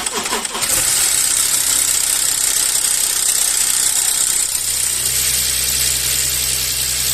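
Audi A4 V6 engine starting on the starter and running, then settling into a steady idle about four and a half seconds in. This is the first test start after the oil pan was refitted to clear an oil pickup blocked by silicone.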